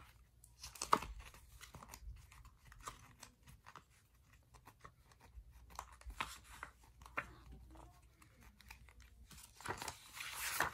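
Paper page of a comic book being flipped quickly back and forth, giving soft rustling and flapping with scattered light clicks. It grows busier near the end.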